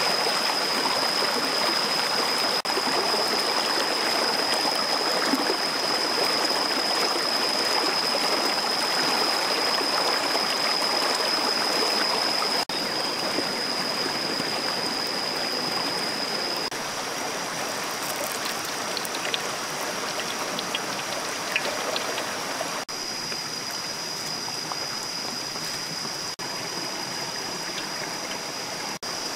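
Steady rushing of a shallow, rocky stream, with a thin, steady high-pitched whine above it that shifts slightly higher about halfway through.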